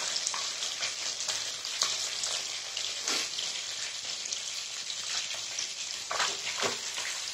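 Fish pieces deep-frying in mustard oil in a metal kadhai, a steady crackling sizzle; the fish is fully fried and ready to be lifted out. A perforated metal skimmer clicks and scrapes against the pan a few times, about three seconds in and twice near the end.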